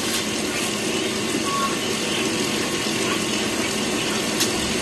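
Steady background noise with no voices, and a light click, like cutlery on a plate, near the end.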